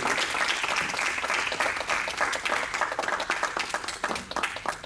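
Congregation applauding: many quick hand claps that thin out near the end.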